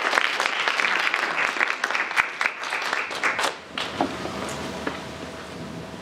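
Audience applauding with dense clapping that dies away about three and a half seconds in, leaving a few last claps. Then quiet room noise with a faint steady hum.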